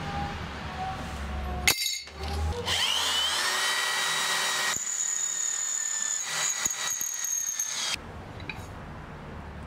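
Corded electric drill boring holes through a thin sheet-metal plate: it spins up with a rising whine, then runs steadily with a high tone, in a few short runs. It stops about 8 seconds in.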